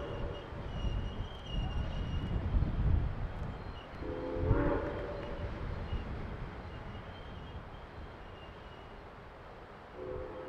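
A locomotive whistle sounds one short chime blast about four seconds in, over the low rumble of the passenger cars rolling past and away. The rumble fades toward the end.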